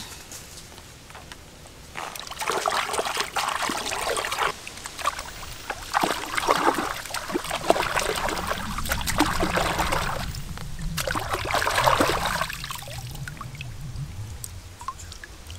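Hands washing in shallow pond water: several bouts of splashing and sloshing, starting about two seconds in and dying down near the end.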